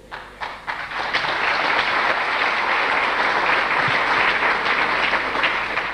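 Audience applauding: a few scattered claps swell within about a second into steady applause, which thins near the end.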